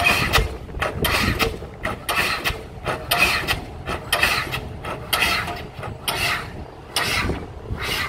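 Guided-rod diesel pile hammer pounding steadily, about two strokes a second.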